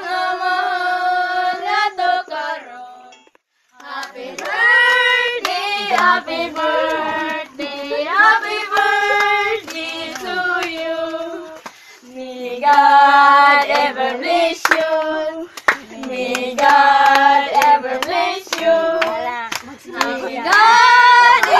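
Voices singing a birthday song in phrases, with hands clapping along.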